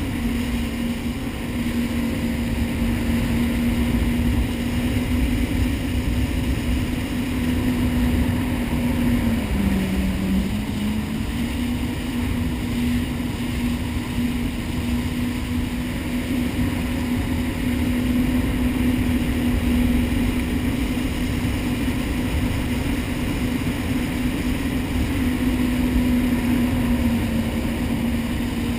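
Jet ski engine running steadily at speed over the rush of water. The engine's pitch dips briefly about ten seconds in, then comes back up.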